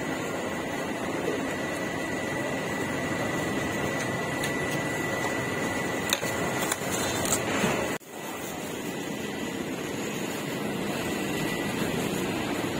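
Steady background noise of a street-food stall, with a constant high whine and a few light clicks. The sound drops out briefly about eight seconds in, then carries on without the whine.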